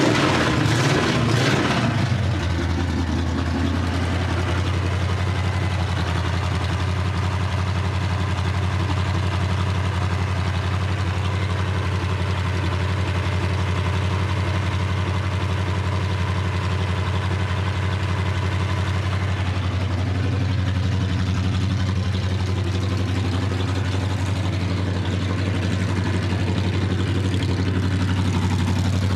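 Chevrolet 350 small-block V8 in a 1982 Chevy half-ton pickup, running on its first start after being got going again. It is loud and busy for about two seconds just after catching, then settles into a steady idle.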